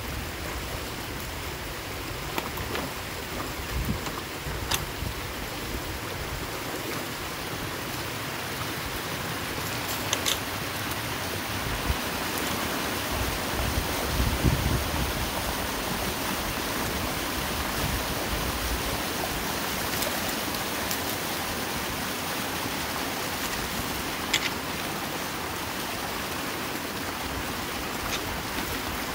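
Water rushing steadily through a freshly unclogged culvert pipe as the ponded ditch drains, with a few sharp clicks and knocks.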